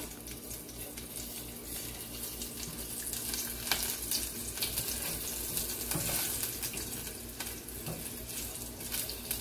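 Garlic cloves sizzling in hot oil in a small saucepan, with a steady hiss and scattered crackles, while a silicone spatula stirs them. The garlic is being browned for the tempering.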